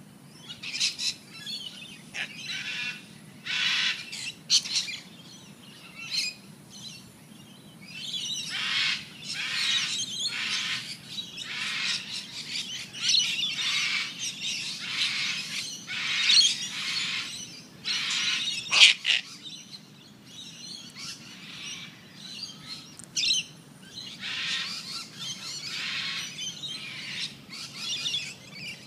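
Birds chirping and calling in repeated short bursts, thickest through the middle, with one sharp, loud click about two-thirds of the way through.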